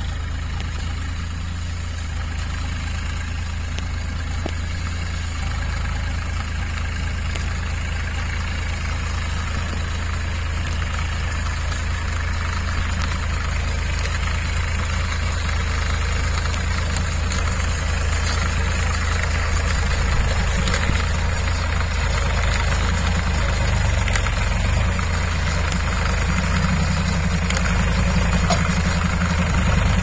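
Massey Ferguson 7250 DI tractor's three-cylinder diesel engine running steadily, driving an NRS round straw baler through its PTO as it gathers paddy straw; gradually louder as it comes closer.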